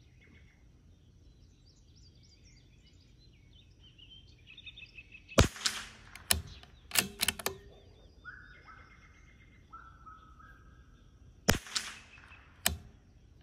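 Two shots from a CZ 457 bolt-action .22 LR rimfire rifle firing Eley Match ammunition, about six seconds apart, each followed within a second or so by a few quieter clacks. Birds chirp faintly between the shots.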